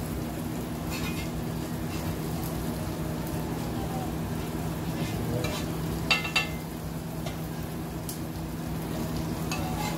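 Butter sizzling on a hot flat griddle, with a metal spatula scraping and clicking against it, sharpest in a quick double clink about six seconds in, over a steady low hum.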